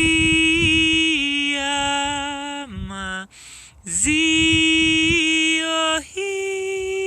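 A woman's voice chanting long, held, wordless tones in light-language style. It glides down between notes, breaks off with a breath about halfway through, then goes on and moves up to a higher note held near the end.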